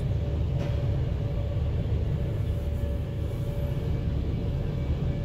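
Steady low rumble heard from inside a van's cabin, with a faint steady hum above it.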